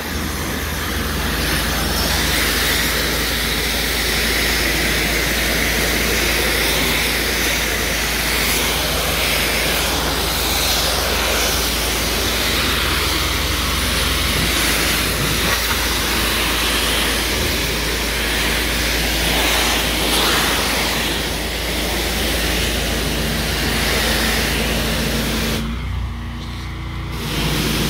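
Pressure washer lance spraying a high-pressure jet onto sandstone paving slabs, rinsing off loose dirt: a steady loud hiss of water over the machine's low steady hum. The spray cuts off for a second or so near the end while the machine keeps running.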